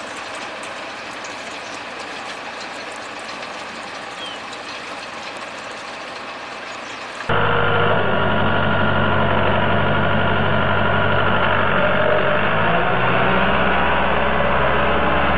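A steady, fainter hiss first. About seven seconds in, after a sudden jump in loudness, a farm tractor's diesel engine runs steadily as the tractor, on steel cage wheels, hauls a puddling implement through a flooded rice paddy.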